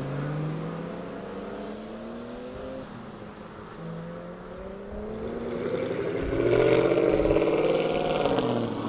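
Sports car engines accelerating away down a pit lane, revs rising and dropping back through gear changes; it gets louder about six and a half seconds in as a nearer car pulls away hard.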